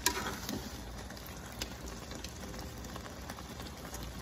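Thick goat-and-vegetable stew simmering in a metal pot, a steady patter of bubbling and spattering with a few faint ticks.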